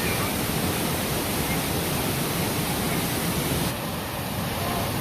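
Steady rush of a waterfall, an even roar of falling water, its high hiss thinning slightly about three and a half seconds in.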